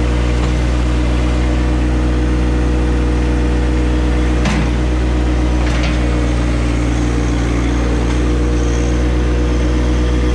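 John Deere compact tractor's diesel engine running steadily at a constant pitch, heard from the operator's seat, with two brief knocks about halfway through, a second or so apart.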